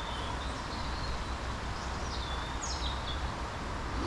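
Steady rush of river water with a low wind rumble on the microphone, and small birds chirping over it, with a couple of quick falling notes near the end.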